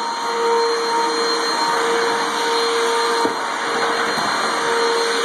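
Backpack vacuum cleaner running steadily: a constant rush of air with a steady motor hum.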